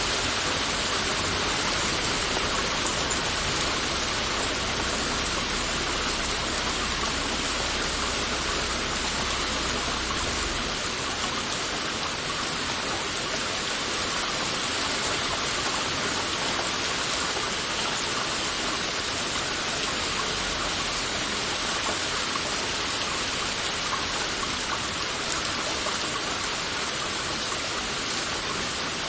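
Heavy rain falling steadily, a dense, even hiss of countless drops. A deep low rumble underneath stops about ten seconds in.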